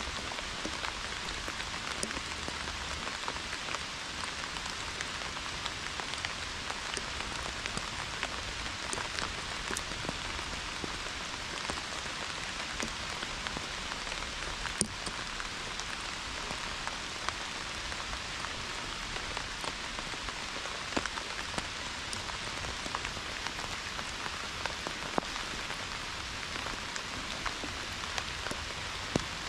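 Pouring rain: a steady, even hiss with many sharp ticks of single drops scattered through it.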